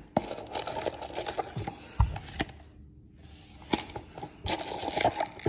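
Card cases and cardboard packaging from a trading-card box being handled. There are light clicks, taps and rustling, with a brief lull about halfway through.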